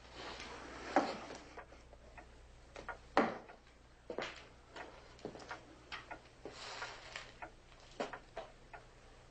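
Irregular soft knocks and clicks, about a dozen, the loudest about one second in and just after three seconds in, over a faint steady low hum.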